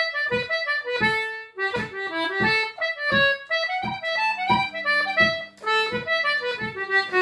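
Anglo concertina playing a phrase of a reel in short, separate notes with small gaps between them, lower notes sounding underneath from about four seconds in. Light low knocks fall regularly on the beat.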